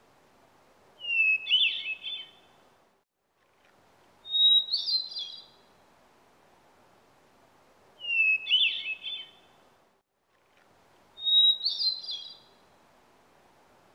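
Hermit thrush singing: four flute-like song phrases a few seconds apart, each opening on a held whistle and running into a quick tumble of higher notes. Alternate phrases start lower and higher in pitch. A faint hiss lies under the song between phrases.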